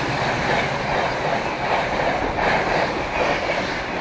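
A train running along the track: a steady rumble and rattle of wheels on rails.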